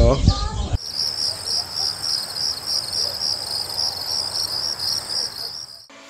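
Crickets chirping in an even, rapid rhythm, high-pitched, over low background noise; it cuts off suddenly near the end.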